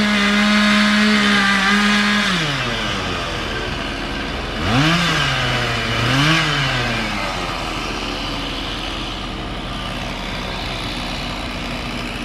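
Two-stroke gas chainsaw revving to full throttle and cutting into a pine stump, held for about three seconds before dropping back. About five seconds in it revs up twice more in quick succession, sagging briefly under load between, then settles to a steady low engine drone.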